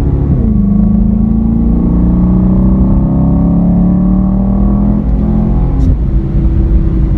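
Chevrolet SS's 6.2-litre LS3 V8 pulling under load: the revs drop just after the start, then the engine note climbs steadily for about five seconds before the revs drop again near the end and settle. A deep low rumble runs underneath.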